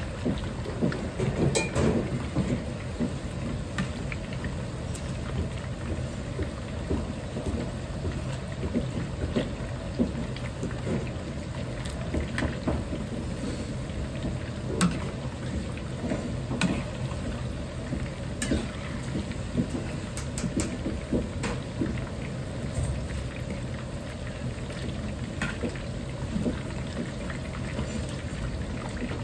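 Chicken karaage deep-frying in a large wok of hot oil: the oil crackles and bubbles steadily, like rain. Now and then come sharp clicks of the metal ladle against the wok as the pieces are stirred.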